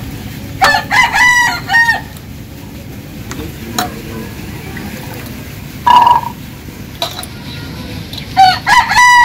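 A rooster crowing twice, about half a second in and again near the end, with a shorter single call in between.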